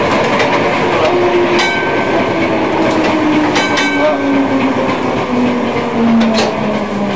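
Munich M-type tram running, heard from inside near the driver's cab: steady running noise of the wheels on the rails under a low motor whine that falls steadily in pitch as the tram slows. The tram's bell rings briefly twice, about two seconds apart, and there is a sharp click near the end.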